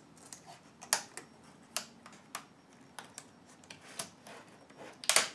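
Light plastic clicks and taps as a small flathead screwdriver works at a large keycap and its thin plastic retainer clips on a Dell laptop keyboard. The clicks are scattered and irregular, with a louder double click near the end.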